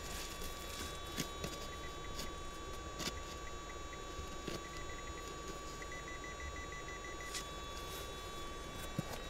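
Hand pick digging into gravelly soil against bedrock: a few scattered knocks and scrapes as the pick strikes stones. A steady faint high tone runs underneath, and a quick run of pips sounds about six seconds in.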